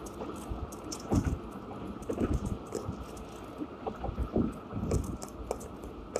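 Inside a moving car's cabin: low road rumble with irregular light clicks and rattles and a few soft knocks.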